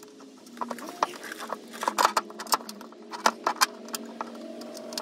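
Irregular clicks and clinks of a bolt and steel mounting bracket being handled and fitted under a pickup's rocker panel, with a few sharper knocks around the middle.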